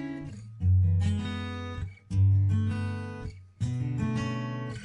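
Background music of an acoustic guitar strumming chords, a new chord struck about every one and a half seconds and fading after each.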